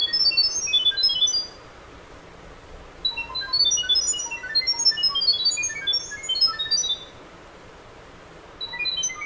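Smartphone speaker playing an IP camera app's sound-wave pairing signal, the "ding dong": rapid strings of short high beeps hopping up and down in pitch, sending the WiFi password to a D3D WiFi camera. The beeping breaks off about a second and a half in, starts again around three seconds, pauses again around seven seconds and resumes near the end.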